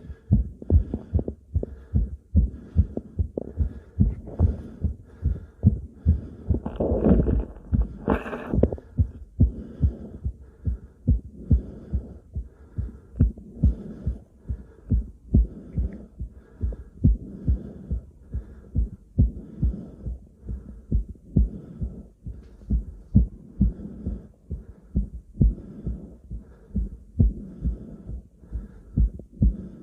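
A person's own heartbeat picked up through a stethoscope: steady lub-dub pairs of thumps at about one a second. Breathing noise runs underneath, with a louder rush of breath about seven to eight seconds in.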